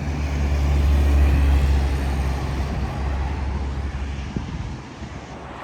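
Low engine hum of a passing vehicle, loudest about a second in and fading away over the next few seconds.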